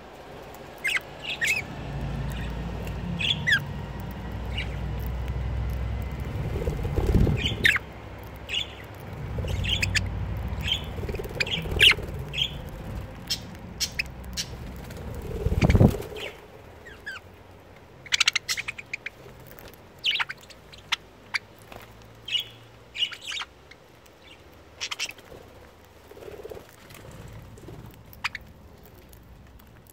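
Budgerigars chirping in short, scattered calls throughout. Under them a steady low rumble fills the first half and cuts off suddenly about sixteen seconds in.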